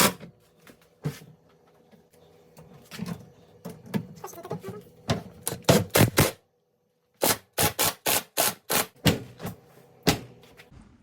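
Sharp, irregular clicks and knocks of hard plastic and metal parts being worked by hand on a dishwasher during installation. After a brief break, a faster, fairly even run follows at about four clicks a second.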